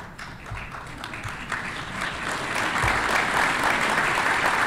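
Audience applause, starting as scattered claps and swelling to full, steady applause about a second and a half in.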